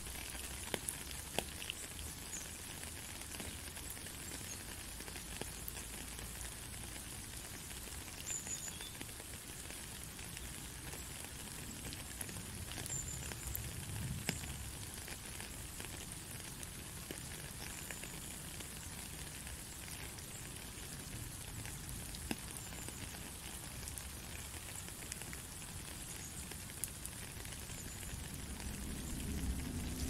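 Steady rain: a fine, even hiss of falling rain with scattered sharper drop ticks.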